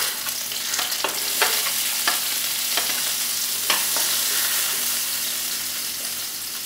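Chopped onion sizzling in hot oil in a metal pan as it is stirred; the stirring utensil clicks and scrapes against the pan several times in the first few seconds. The sizzle eases slightly toward the end.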